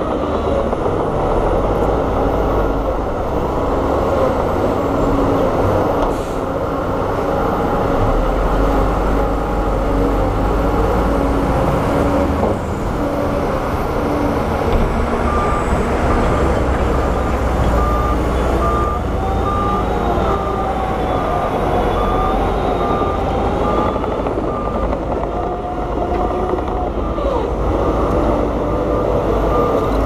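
Heavy diesel engine of a loaded Hyundai dump truck running with a steady rumble. From about halfway, a regular beep sounds about once a second.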